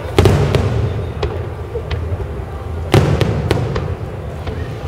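Aerial firework shells bursting overhead: two loud booms, one near the start and one about three seconds in, with lighter cracks and pops between them.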